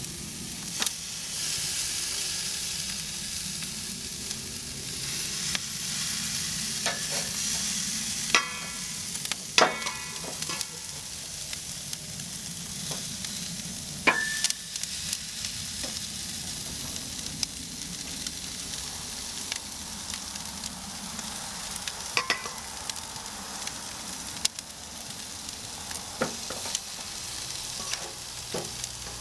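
Raw chicken drumsticks sizzling as they are laid skin side down on the hot grates of a charcoal grill. Metal tongs clink now and then, a few of the clinks ringing briefly.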